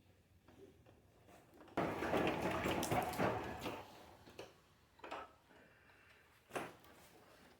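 Scraping, rustling handling noise for about two seconds, then a few short knocks, the sharpest near the end.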